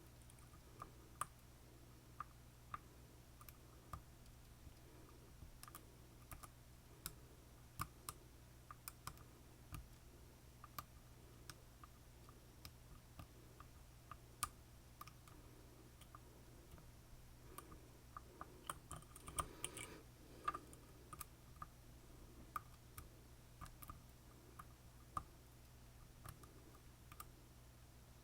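Faint, irregular small metallic clicks and ticks of a lock pick working the pins inside an Assa Twin Combi lock cylinder, with a denser flurry of clicks about twenty seconds in.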